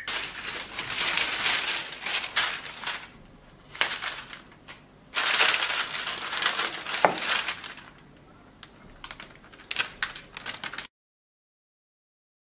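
Sheet of baking paper crinkling and rustling as it is handled, in several bursts with a few sharper crackles. It cuts off suddenly to silence near the end.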